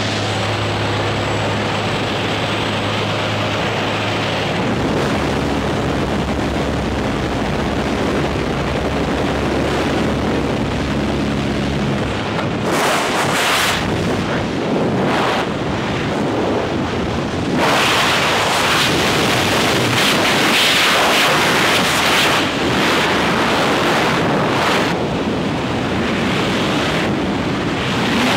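Jump plane's engine droning steadily with wind through the open door, then, from about twelve seconds in, the steady rush of freefall wind on the microphone.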